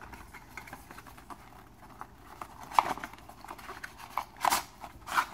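White cardboard packaging being handled: a cardboard insert lifted and slid out of a laptop box, giving light rustling and scraping with a few soft taps and clicks, the sharpest about three seconds in.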